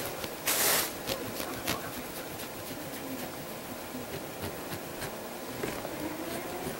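Knife cutting through a sponge cake layer: soft, uneven scraping with a few faint clicks, and a short louder rustle about half a second in.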